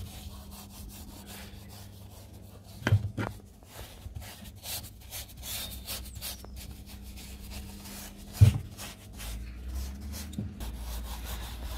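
Paintbrush bristles scrubbing wood hardener into a soft, rotten wooden shed plank in many short, scratchy strokes, with a couple of knocks against the wood, the loudest about eight seconds in.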